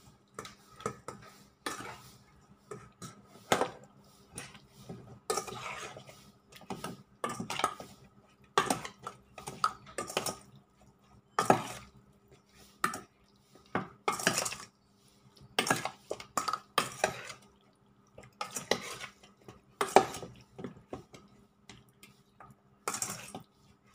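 Metal spoon scraping and clinking against a stainless steel mixing bowl as raw chicken wings are stirred through a turmeric marinade, in irregular strokes.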